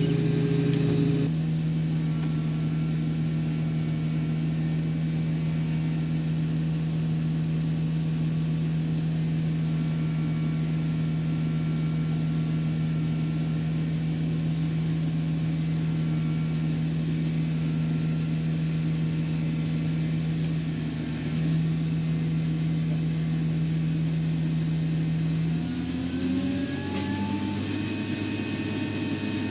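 Farm machinery engine running at a steady speed, then dropping off and revving back up near the end.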